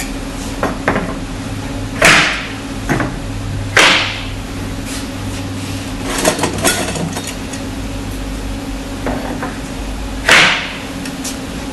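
Spring steel clips being struck onto the edges of a plywood crate's lid and side panels: three loud sharp strikes, two close together and the third several seconds later, with lighter knocks and clatter in between.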